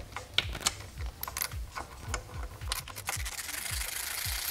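Hand wrench work on a small hex-head screw: scattered metal clicks and scrapes, then about three seconds in, a rapid run of ratchet clicking as a ratchet wrench spins the screw out. Background music with a low steady beat runs underneath.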